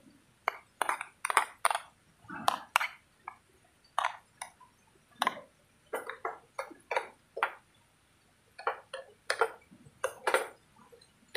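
A spoon scraping and clinking against the pan of a German army mess kit while minced meat is stirred, in irregular clusters of sharp knocks with short pauses between.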